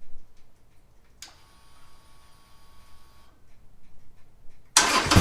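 A click about a second in, followed by a faint steady whine for about two seconds. Then near the end the 2020 Harley-Davidson Sportster Iron 1200's air-cooled V-twin cranks and starts abruptly, catching quickly on a battery that is weak but still holds enough charge.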